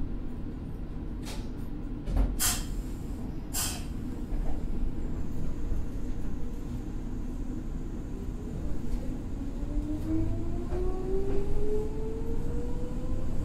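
Meitetsu 6000 series electric train pulling away, heard on board. A few sharp knocks come in the first four seconds over a steady rumble of wheels. From about eight seconds a whine from the traction motors and gears rises steadily in pitch as the train gathers speed.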